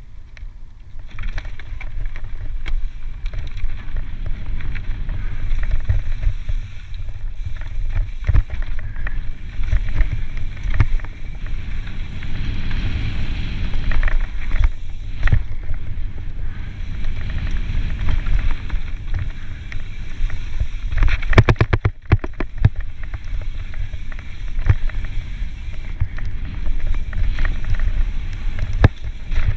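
Mountain bike descending a dirt singletrack: a steady rumble of wind on the microphone and tyres on dirt, with frequent knocks and rattles from bumps, and a quick run of clicks about three-quarters of the way through.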